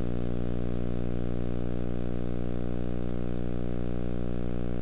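Steady electrical hum with a buzzy stack of overtones and a faint high whine, unchanging throughout: mains hum on an analog soundtrack.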